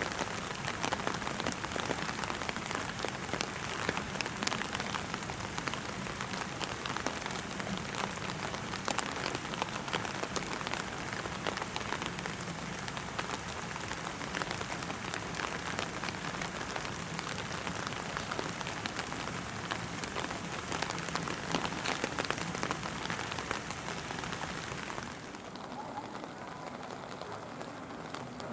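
Steady rain falling on surfaces: an even hiss dense with fine drop ticks. About 25 seconds in it becomes quieter and duller.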